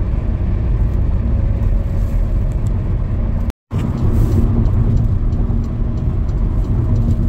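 Car driving along a city street: a steady low rumble of engine and tyres. The sound cuts out completely for an instant about three and a half seconds in.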